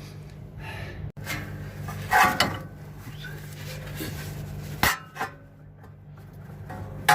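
Metal clinks, knocks and scraping from a rusted, stuck splined steering-shaft joint being worked by hand to pull it apart, with the loudest knock about two seconds in and another near five seconds. A steady low hum runs underneath.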